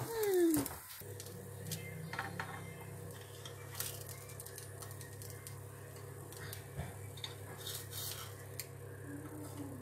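Metal spoon clicking and scraping against a non-stick bánh khọt mould pan as the cooked mini pancakes are scooped out of their wells, a scattered tap every second or so. A short falling tone opens, and a steady low hum starts about a second in.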